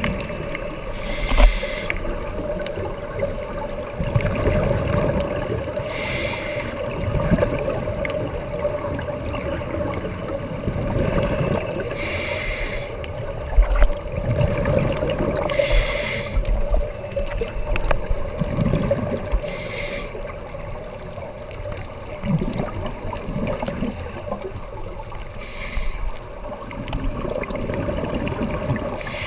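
Scuba diver breathing underwater through a regulator: six bursts of exhaled bubbles a few seconds apart, with gurgling between breaths and a steady hum throughout.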